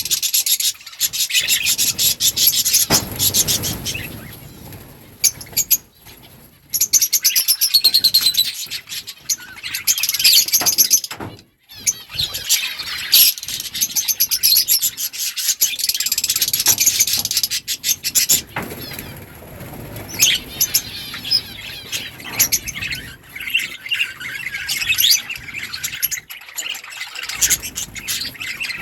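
Several budgerigars chirping and chattering to each other in a continuous stream of rapid, high warbles, with two brief lulls.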